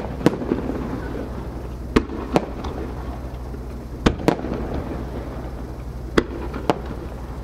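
Japanese aerial firework shells by Marugo bursting, sharp bangs coming mostly in pairs about every two seconds, over a steady low rumble.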